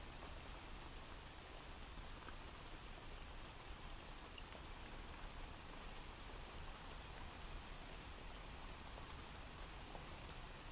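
Faint, steady rain from a recorded rain sound effect used as a background bed, with a few scattered light drop ticks.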